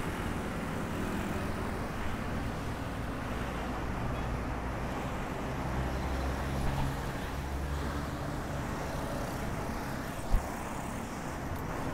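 Road traffic heard from a bicycle riding among vehicles: a steady low rumble of engines and tyres that swells for a few seconds in the middle, with a single sharp knock about ten seconds in.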